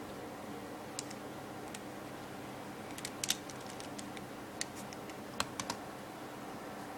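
Plastic Rubik's cube clicking as its layers are turned one-handed: scattered sharp clicks, a few close together about three seconds in and again near the end, over a steady low hum.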